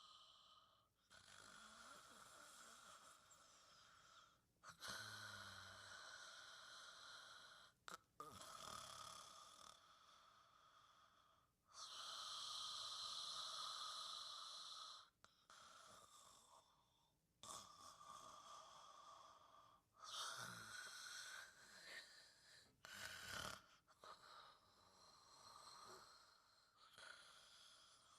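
Faint, gentle snoring in deep sleep: slow, even breaths of three or four seconds each, one after another.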